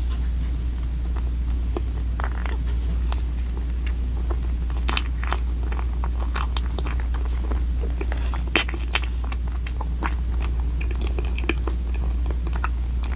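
Close-miked eating: a person chewing and biting food, with irregular crunches and wet mouth clicks, the sharpest about eight and a half seconds in, over a steady low hum.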